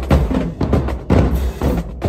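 Marching drumline playing: rapid, dense snare drum strokes over the low beats of the bass drums, with a brief break near the end.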